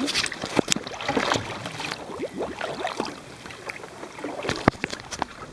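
Water lapping and slapping against a small boat's hull, with irregular knocks and rubbing from the handheld camera.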